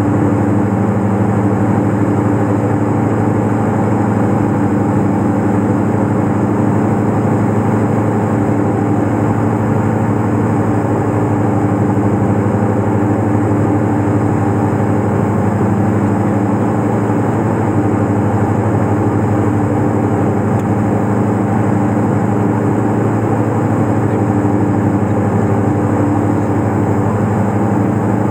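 Diamond DA42 twin-engine aircraft's engines and propellers droning steadily, heard inside the cabin on approach. It is a constant hum with a few low steady tones and no change in power.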